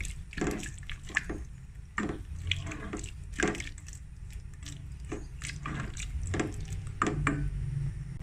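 Soup broth with chopped vegetables sloshing and splashing in a stainless steel pot as it is stirred with a wooden-handled spatula, in irregular strokes.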